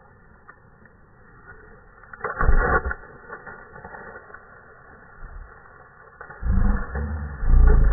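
Slowed-down audio of a pumpkin landing hard on grass and bursting apart: one deep, drawn-out thud a little over two seconds in. Near the end come loud, low, drawn-out sounds that bend in pitch.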